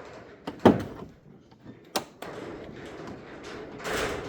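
Knocks and a rough sliding rumble from a VW Beetle door as its window is wound up by the hand-cranked winder, a sharp knock about a second in the loudest.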